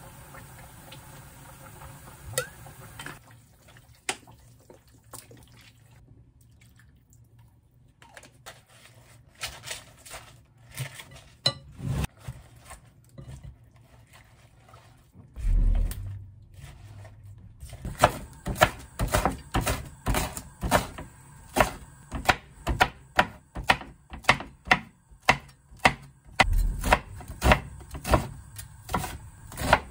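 Salad greens being tossed and scraped with a wooden spoon in a glass bowl, with scattered soft clicks, then a heavy thud a little past halfway. After that a kitchen knife chops green onion on a wooden cutting board, sharp knocks about two a second, the loudest sound.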